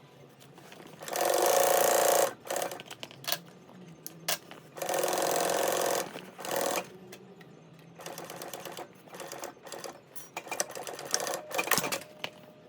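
Sewing machine running in two steady bursts of about a second each, stitching binding tape onto a stiff fabric pouch, followed by a few seconds of light clicking and rattling.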